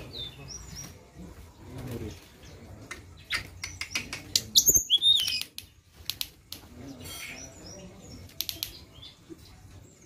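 Caged Cyornis blue flycatcher (tledekan) giving short high whistled chirps among sharp clicks and wing flutters. The loudest stretch is about halfway through, a quick run of clicks with a few rising whistled notes.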